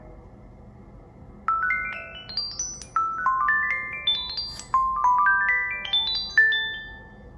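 A Nokia Lumia 1520 ringtone from Windows Phone 8. Clear pitched notes climb in several quick rising runs, starting about a second and a half in. The runs end on a louder held note that fades away.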